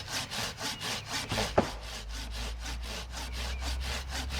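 Hand saw with a peg-tooth blade cutting through a wooden log in quick, even back-and-forth strokes. A single sharp knock sounds about a second and a half in.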